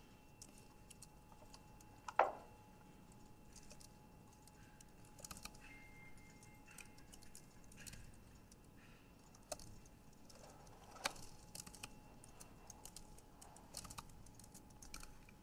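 Faint, irregular typing on a computer keyboard, with a louder knock about two seconds in and another near eleven seconds.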